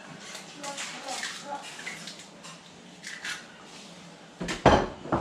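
An egg being broken into a glass bowl: small clicks of shell and a wet drip. About four and a half seconds in comes a heavy knock, with a lighter one just after.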